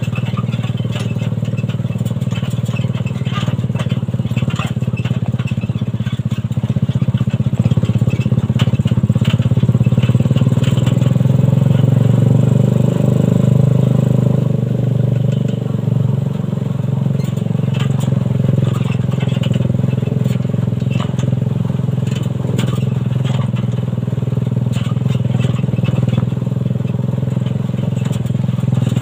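Suzuki Satria FU 150cc single-cylinder four-stroke motorcycle engine in a homemade buggy, running under way, with many knocks and rattles from the ride. The engine grows louder a few seconds in, eases off around halfway, then runs steady.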